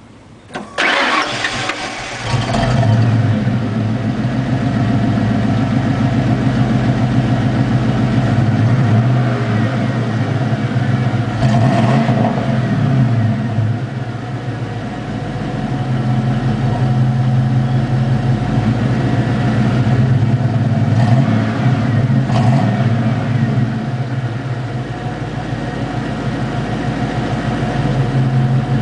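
1994 Ford Bronco V8 being started through a Flowmaster 40 exhaust: it cranks and catches about two seconds in. It then idles with a deep exhaust note and is revved a few times.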